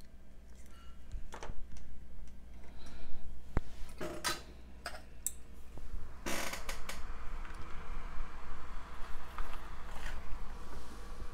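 Scattered clicks, taps and knocks of small hand tools being handled while desoldering a jumper on a circuit board, with a louder rustling clatter about six seconds in, over a low steady hum.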